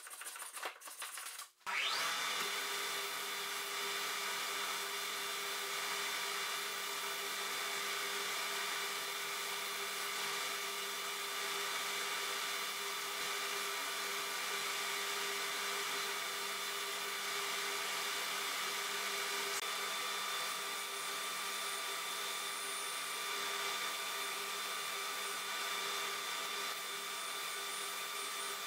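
A belt edge sander starts up and runs steadily, with a constant hum and belt hiss, while small wooden parts are held against the sanding belt. Before it, a few short strokes of a hand tool on wood.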